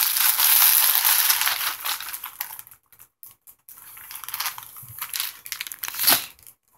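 Plastic wrapping and paper packaging being handled, crinkling and rustling. The crinkling is loudest over the first two seconds or so, then thins to lighter crinkles, with a brief louder crackle near the end.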